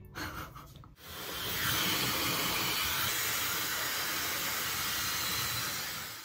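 Handheld hair dryer switched on about a second in, building quickly to a steady rush of blown air that holds level, then cuts off abruptly at the end.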